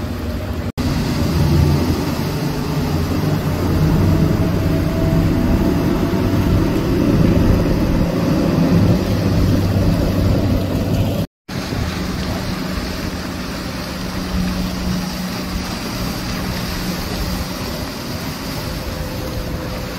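Outboard-powered speedboats running fast past the shore: a steady engine drone under a broad rush of spray and wind. It breaks to silence twice, briefly, about a second in and about eleven seconds in.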